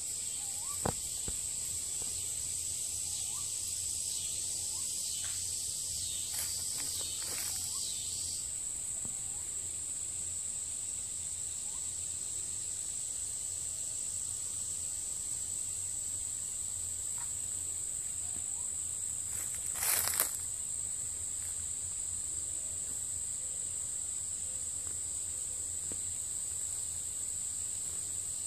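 Woodland insect chorus, such as crickets, making a steady, high-pitched continuous drone. A few faint clicks sound in the first several seconds, and a brief louder noise comes about twenty seconds in.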